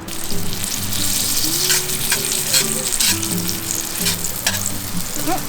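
Garlic and onion sizzling in butter in a pan, with the scrape and click of a utensil stirring them now and then. Soft background music runs underneath.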